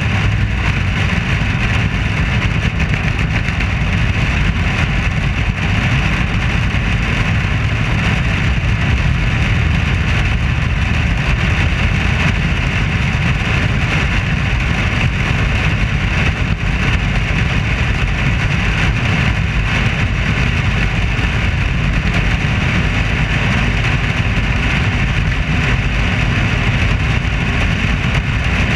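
Dirt-track modified race car running at racing speed, a loud, steady engine-and-wind din picked up by a camera on the car's roof.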